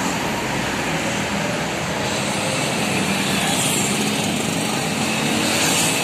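Road traffic close by: engines of a bus, cars and motorcycles running and passing, steady throughout with two brief swells near the middle and near the end.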